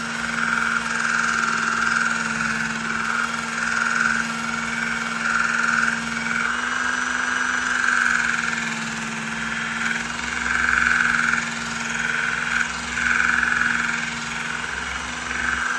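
Work Sharp Ken Onion belt sharpener running steadily, with a knife blade drawn across the moving abrasive belt in repeated passes. The grinding sound swells and fades with each pass, about once a second.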